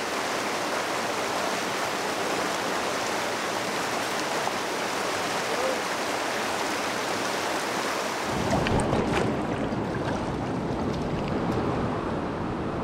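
Steady rush of flowing stream water over rocks. About eight seconds in, the sound cuts to a closer, deeper rush of water with a few faint ticks.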